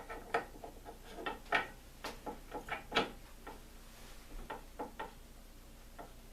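Irregular light clicks and taps of small steel parts being handled and set into a Dana 35 differential carrier: Aussie Locker axle gears, spacers and thrust washers. The taps are closest together in the first three seconds and thin out after about five seconds.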